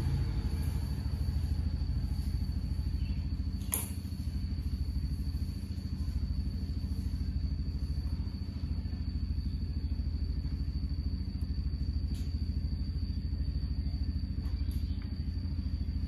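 Mikrotik CCR1016-12G router running after power-up, its cooling fans giving a steady hum with a thin high whine. One short click about four seconds in.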